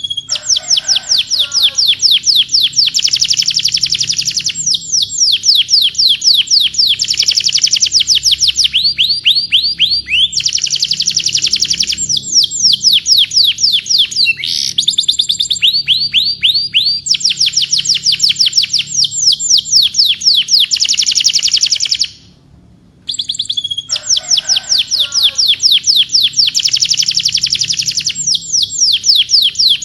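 Domestic canary singing a long, loud song of rolling tours: fast runs of identical down-sweeping notes that switch to a new trill every second or two. The song breaks off for about a second some 22 seconds in, then starts again.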